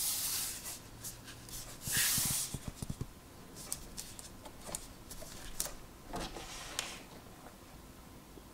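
Hands rubbing and pressing a glued foam track-bed strip down onto a model railway baseboard: soft swishing rubs, the loudest about two seconds in, with a quick run of small clicks just after and scattered light ticks later.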